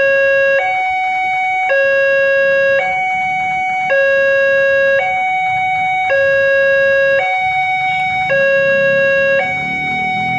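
Railway level-crossing warning alarm sounding from its loudspeaker, a loud two-tone electronic chime alternating between a lower and a higher note about every second: the crossing is closed for an approaching train. A low rumble grows beneath it near the end.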